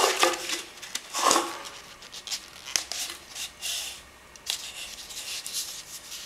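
Brown paper pattern being rubbed and slid around a metal can by hand: irregular rustling and scraping, with a few light clicks.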